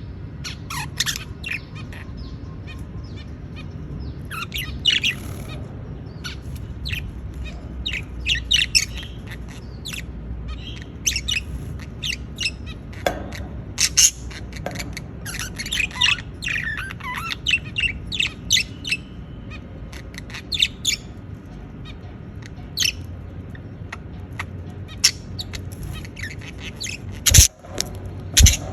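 Budgerigars chirping and chattering in quick, irregular bursts of short high notes over a steady low hum, with two sharp clicks near the end.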